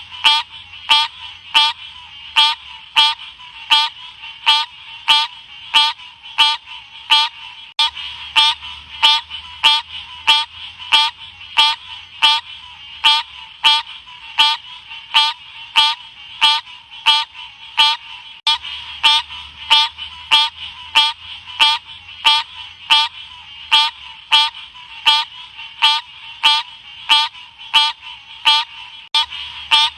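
Green cascade frog (Odorrana livida) calling: short, sharp chirps repeated at a steady pace of about one and a half a second.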